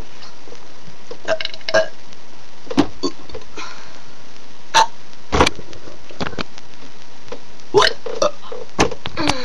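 A person burping: several short burps a second or more apart, with pauses between them.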